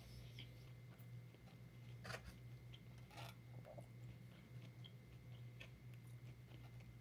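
Faint chewing and mouth sounds of someone eating fried hot chicken, with two louder crunchy bites about two and three seconds in, over a steady low hum.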